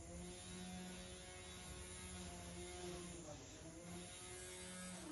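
Faint machine hum, steady, with its tones dipping and rising in pitch briefly a couple of times.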